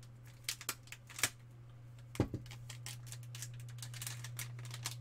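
Staples being prised out of a small stapled packet with a thin metal tool: a handful of sharp clicks and snaps, loudest about one and two seconds in. A steady low hum runs underneath.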